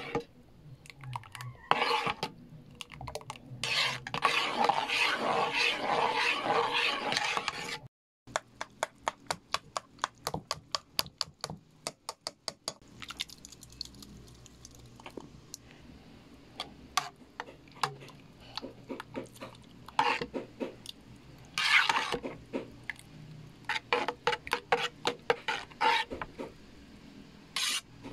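A spoon stirring a thick, creamy mango mixture in a metal pot, scraping and clinking against the pot. The stirring is continuous at first, turns into quick regular strokes about a third of the way in, and then comes in scattered bursts of strokes.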